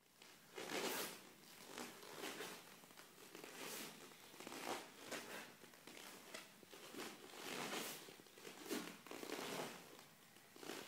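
Karate gi fabric swishing and snapping in about a dozen irregular bursts as the strikes and turns of a kata are performed.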